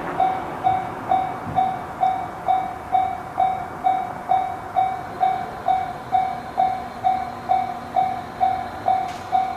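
Japanese railway level-crossing warning bell ringing its repeated electronic clang, a little over two strikes a second. The noise of a passing train fades away in the first second or so.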